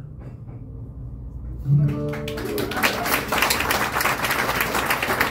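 Audience breaking into applause about two seconds in, with a shout at the start, after the last note of a live acoustic song; the clapping grows louder and keeps going.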